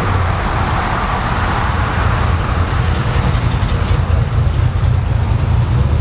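A pickup truck's V8 engine running while under way, a dense low rumble with road and wind noise over it.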